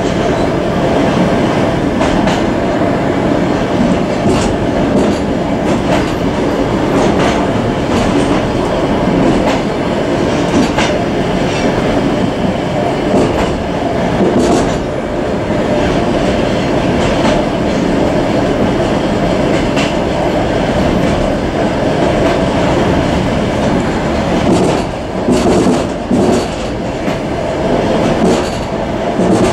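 Suburban passenger train running on jointed track, heard from inside the vestibule at the end of a carriage: a steady rumble of wheels on rails with the clickety-clack of wheels crossing rail joints, the clacks coming in groups.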